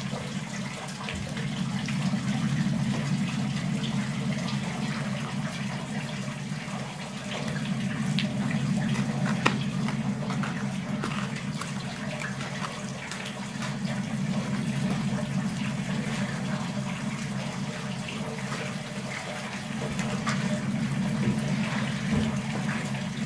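A steady rushing noise like running water over a steady low drone, with scattered small clicks and knocks.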